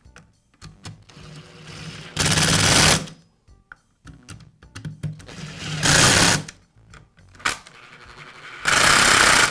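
Cordless drill-driver running in three short bursts, each under a second and about three seconds apart, driving screws into a string trimmer's plastic engine housing, with quieter handling knocks between.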